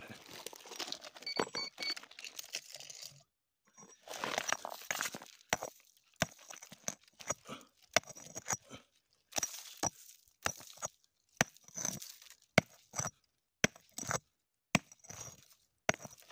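A small wooden-handled digging tool chopping into stony, gravelly soil: a run of sharp strikes about every half second, with gritty scraping of stones and earth around them.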